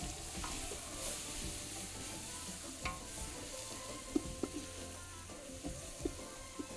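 Wooden spoon stirring onion, tomato and spices frying with a steady sizzle in a large aluminium pot over a gas flame, with a few light knocks of the spoon against the pot.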